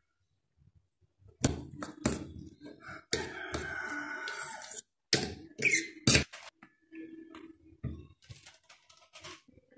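A fork clinking sharply against a stainless steel bowl and scraping through chopped vegetables as they are mixed, with a longer scrape in the middle and a few more clinks after it.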